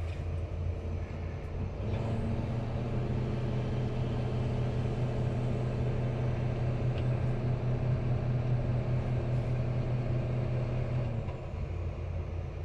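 Excavator's diesel engine heard from inside the cab, running with a steady hum. About two seconds in it steps up to a higher engine speed as the boom and swing are worked, holds there, and drops back near the end.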